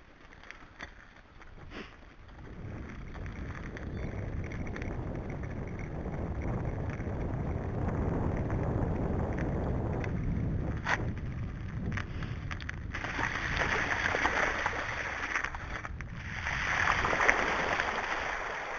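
Mountain bike rolling downhill on a rough, muddy track: wind buffeting the camera microphone and tyre rumble build up as speed picks up, with a few sharp knocks over bumps. Near the end there are louder hissing surges as the tyres run through wet mud and puddles.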